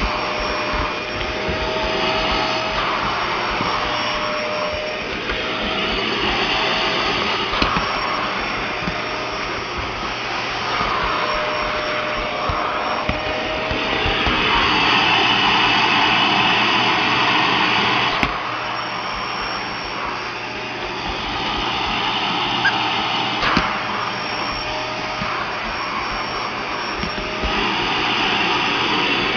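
Household vacuum cleaner running continuously with a steady whine. Its rushing sound swells and fades every few seconds, loudest about halfway through.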